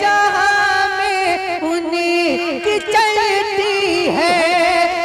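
A naat being sung: a man's voice holding long, wavering, ornamented notes between lines of the verse, over a steady drone.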